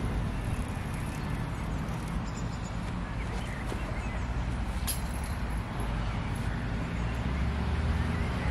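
Wind buffeting the microphone outdoors, a steady low rumble, with one brief click about five seconds in.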